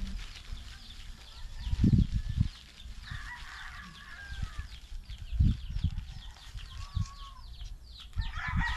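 Chickens clucking and a rooster crowing over many short, high, falling chirps. Several low thumps, the loudest about two seconds in and again about five and a half seconds in, stand out above them.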